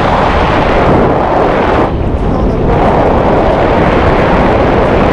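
Heavy wind rushing over the microphone of an action camera held out under an open parachute canopy during descent, a loud steady rumble that eases briefly about two seconds in.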